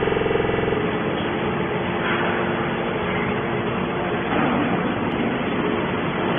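Hydraulic metal baler running: a steady machine drone that starts with a held hum and, after about a second, becomes an even, dense noise.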